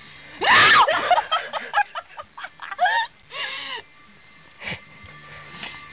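High-pitched squealing laughter in short bursts. The loudest burst comes about half a second in, and breathy, quieter stretches fall between the bursts.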